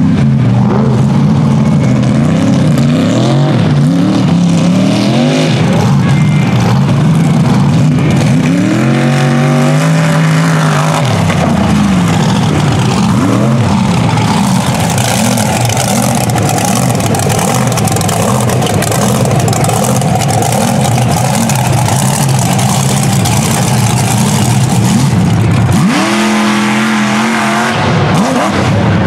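Mega mud truck engine revving hard over a dirt race course, its pitch climbing and dropping again and again with the throttle. In the middle stretch the revving gives way to a steadier rushing roar, and sharp revs return near the end.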